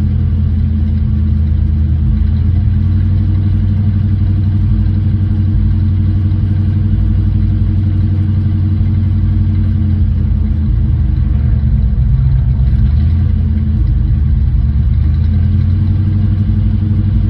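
1968 Ford Mustang engine running steadily at idle while it warms up, not yet settled into its idle, which the owner suspects could be the carburetor needing adjustment.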